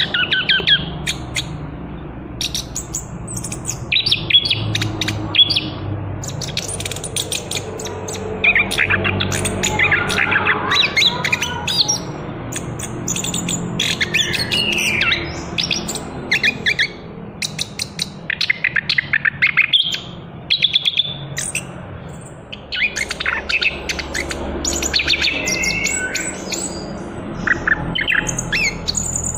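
A young chestnut-capped thrush (anis kembang), still moulting out of its speckled juvenile plumage, singing a long, varied run of quick chirps, trills and short whistled notes, with only brief pauses.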